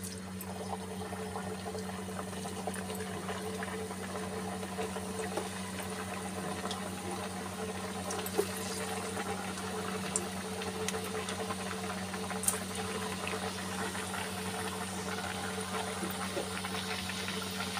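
Mathri dough discs deep-frying in hot mustard oil in a kadhai: a steady sizzle with scattered small pops.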